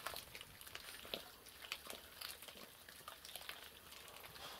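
Cats chewing raw crucian carp: faint, irregular crunching clicks.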